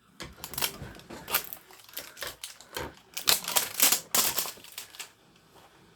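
Toy packaging being torn and crinkled open by hand: quick, irregular crackles that stop about five seconds in.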